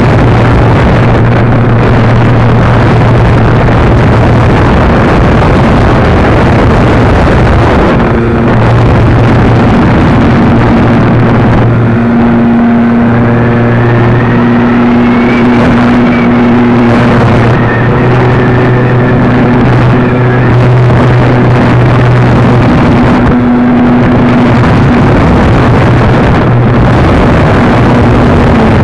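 RC foam plane's motor and propeller running, heard loud and close on a camera mounted on the plane, with heavy wind rush on the microphone. The steady hum drops out briefly a few times.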